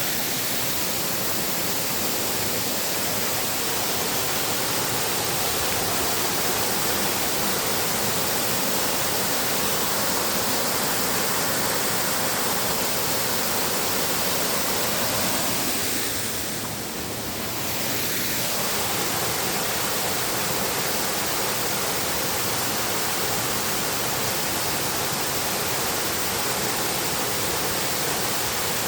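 Dzhur-Dzhur waterfall pouring in heavy flow: a steady rushing hiss that dips slightly for a moment about seventeen seconds in.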